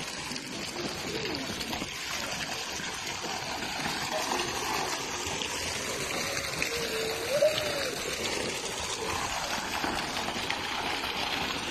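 Water from a statue fountain's jet pouring steadily into a swimming pool.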